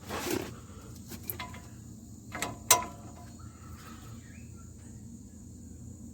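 Sharp metallic clicks and clinks of a wrench working the hub-bearing mounting bolts, the loudest a ringing click about two and a half seconds in, after a short rustle of handling. Crickets trill steadily underneath.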